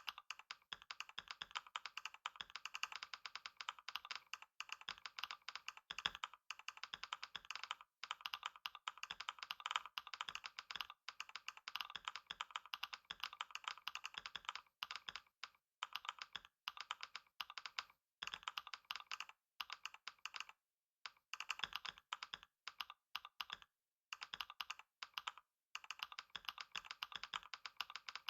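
Fast, continuous typing on a computer keyboard during a speed-typing test: a dense, rapid stream of keystrokes with a few short pauses about three quarters of the way through.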